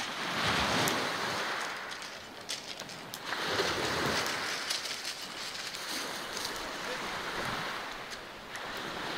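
Small waves breaking on a pebble beach, the noise swelling and falling back in slow surges a few seconds apart, with scattered faint clicks.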